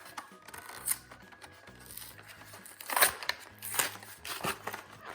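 Toy packaging being opened by hand: irregular crinkling and tearing, loudest about three seconds in, over quiet background music.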